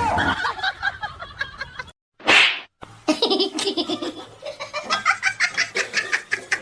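A person laughing in quick repeated bursts, broken just after two seconds in by a short, loud hiss.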